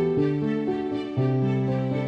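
Slow, soft instrumental background music, with held notes that move to new pitches every half second or so.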